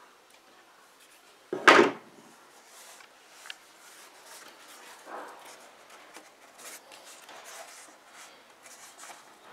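A loud clatter about a second and a half in, as hard plastic spring clamps are handled and set down, then soft rubbing and rustling of leather being smoothed and folded over the panel edge by hand.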